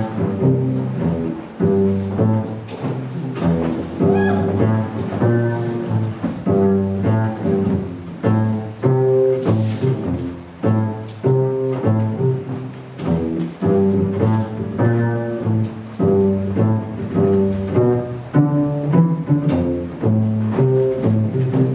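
Cello played live as dance accompaniment: a steady, rhythmic tune of short notes that step quickly from pitch to pitch.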